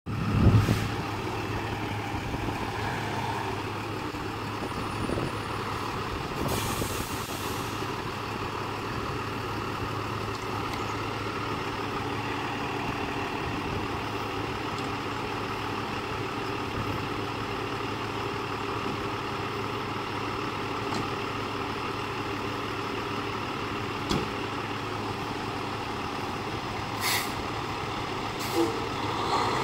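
Aerial ladder fire truck's diesel engine running steadily as the truck pulls slowly away, with a hiss of air brakes about seven seconds in and two short air-brake sounds near the end.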